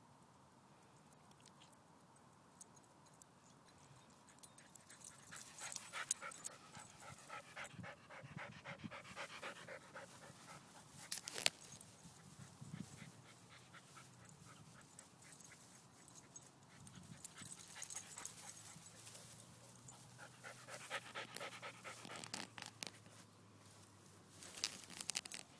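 Corgi-bull mix dog panting fast and hard, in two spells several seconds in and again near the end, with one sharp click in between.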